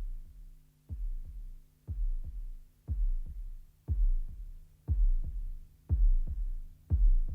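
Outro music: a slow heartbeat-like double thump in the bass about once a second, growing louder, over a held low chord.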